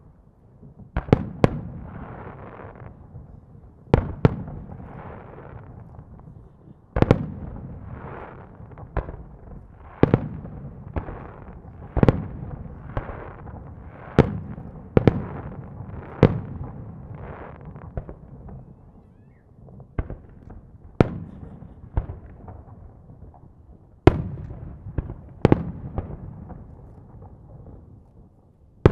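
Aerial firework shells bursting one after another: sharp booms every second or two, each trailing off in a rumbling echo.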